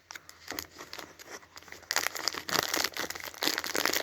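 Plastic snack packet of Fridge Raiders chicken bites crinkling and rustling as it is handled and torn open, a dense irregular crackle that grows louder about halfway through.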